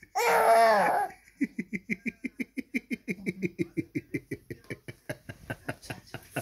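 A short, high vocal sound, then a long run of short rhythmic voiced pulses, about six a second, like soft laughter, slowly growing fainter.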